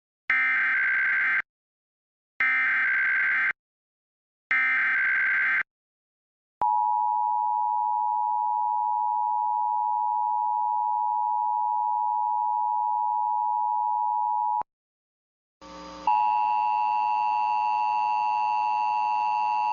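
Emergency Alert System test: three short screeching data bursts of the SAME header, each about a second long, then the two-tone EAS attention signal, a steady dual tone lasting about eight seconds. After a brief gap, a buzzier steady tone starts about sixteen seconds in.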